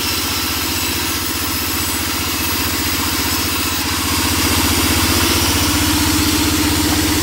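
Sawmill band saw running, driven by an engine with a steady pulsing drone, while a wooden plank is ripped lengthwise on it. It grows somewhat louder about four seconds in.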